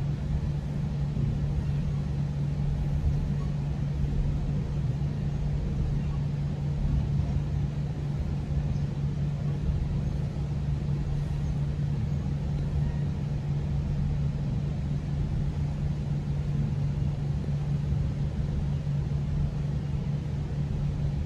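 GO Transit commuter train running between stations, heard from inside the passenger coach: a steady low rumble with a constant hum.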